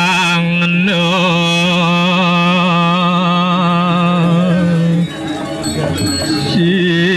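Ceremonial chanting: a held, wavering voice over steady ringing high tones. About five seconds in, the held line breaks into a rougher, noisier passage for a second or so, then resumes.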